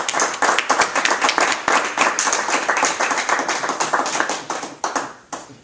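Small audience clapping, many hands together, dying away about five seconds in.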